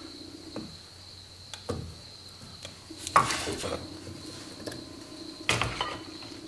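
A few sparse metallic clinks and knocks as a steel socket on a ratchet handle is set down on a wooden block and the ratchet is pulled off it. The loudest clink comes about three seconds in. A faint steady high whine and a low hum run underneath.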